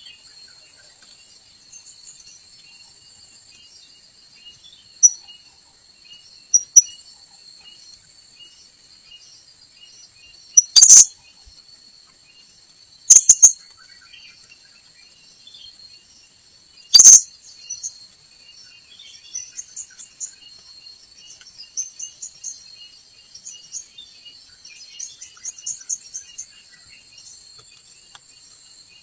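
Sharp, shrill single calls of blue-crowned hanging parrots (srindit): loud notes about five seconds in and at around 7, 11, 13 and 17 seconds, then a run of softer quick chirps through the second half. Under them runs a steady high drone of insects.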